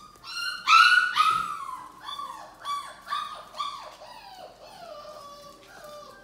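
Labrador puppies yipping and whining in play. There are two loud, longer calls about a second in, then a run of shorter yips, about two a second, that tail off.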